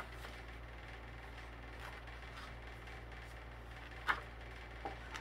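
Pages of a book being leafed through, a few faint short rustles and taps, the sharpest about four seconds in, over a steady low room hum.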